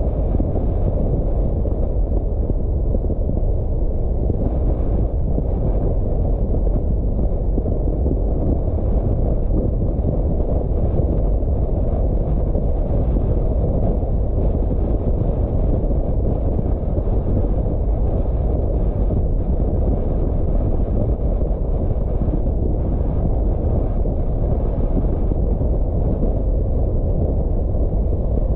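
A car driving on the road: a steady, low rumble that does not change.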